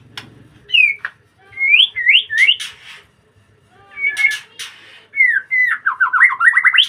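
White-rumped shama (murai batu) singing in bursts: clear whistled slurs mixed with a few harsh rasping notes, separated by short pauses, then a fast run of rapidly repeated falling notes near the end.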